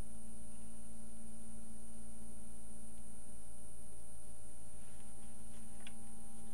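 A steady electrical hum over a low rumble, with a few faint light clicks of small metal tools being handled about five to six seconds in.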